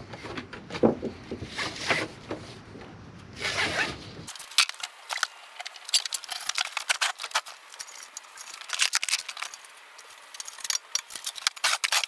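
Ratchet strap being released and its webbing dragged free: rustling and handling scrapes, then from about four seconds in a quick run of sharp clicks and scrapes.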